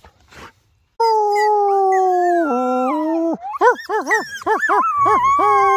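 Coyote howling: after a quiet first second, a long howl that slips down in pitch, then breaks into a quick run of rising-and-falling yips, then settles into a steady held note.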